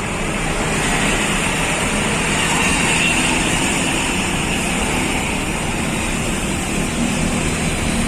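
Busy road traffic: engines and tyres of passing vehicles making a steady noise, with no horn sounding.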